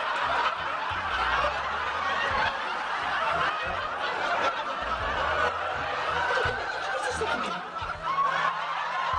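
Studio audience laughing: many people laughing together at a steady level throughout.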